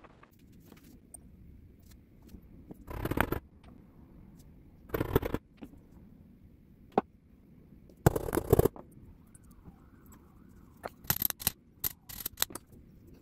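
Small jeweller's hammer striking sterling silver flower pieces on a steel block: three short clusters of quick metal-on-metal taps, then a run of sharper single taps near the end.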